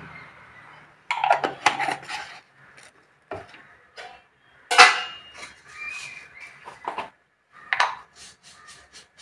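Steel kitchenware and a glass jar clinking and clattering as they are handled and set down on the counter: a run of sharp knocks about a second in, the loudest clatter about five seconds in, and another near the end.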